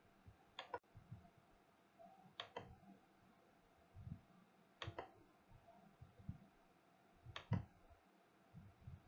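Near-silent room tone broken by four sharp clicks, roughly two and a half seconds apart, with soft low thumps between them.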